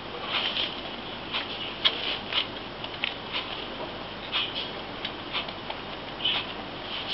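Pet rabbits gnawing at a corn cob in a wicker basket: irregular small crunches and clicks, several a second, with a few louder ones over a light hiss.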